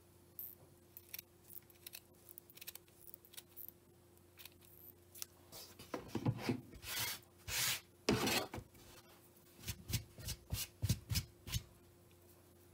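Scissors snipping through cotton yarn fringe in short, scattered snips, with louder rubbing and handling of the yarn against the table around the middle, then a quick run of snips.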